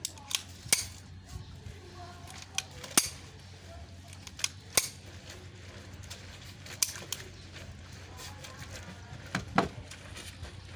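Sharp metallic clicks and clacks from a Beretta 9mm pistol being handled as the slide is worked, mostly in pairs a few tenths of a second apart, about nine in all.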